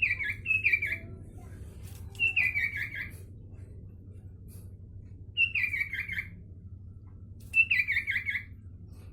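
Sooty-headed bulbul singing: short, clear phrases of a few notes that step down in pitch, five phrases with gaps of one to three seconds between them. A faint steady low hum lies underneath.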